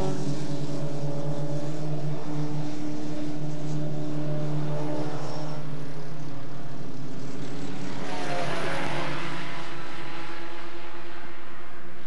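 Formula Ford 1600 race cars' engines running at speed on the track, a steady drone. About eight seconds in a car passes closer and louder, its engine note bending in pitch as it goes by.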